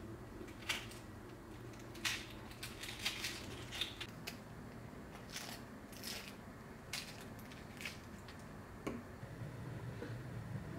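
Kitchen knife peeling and trimming a red onion held in the hand, its dry skin crackling: a string of short crisp snicks at uneven intervals.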